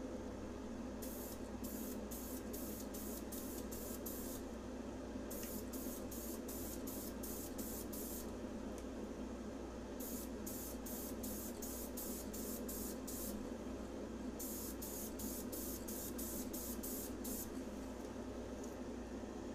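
Aerosol spray can of Krylon Fusion clear coat hissing in short spurts, about three a second, in four runs of a few seconds each with short pauses between: light passes of clear coat over a pistol grip. A steady low hum runs underneath.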